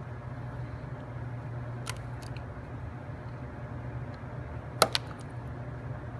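A few light clicks of small wooden pieces and toothpicks being handled on a work surface, with a sharper double click about five seconds in, over a steady low room hum.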